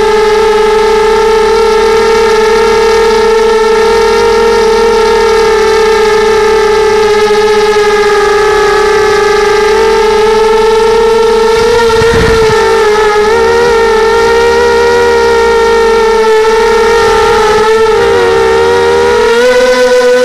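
Electric motors and propellers of a small FPV racing quadcopter, heard from its onboard camera: a loud, steady, high whine. From about twelve seconds in the pitch wavers with throttle changes, dips around eighteen seconds and rises again near the end. There is a brief thump about twelve seconds in.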